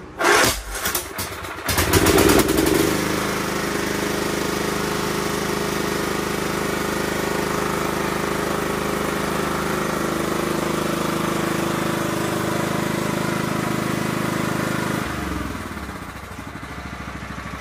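Craftsman LT1000 lawn tractor's 16-horsepower Kohler engine being cranked by the starter on its first start after a fuel-system service. It catches about two seconds in and runs steadily, then drops to a quieter idle near the end.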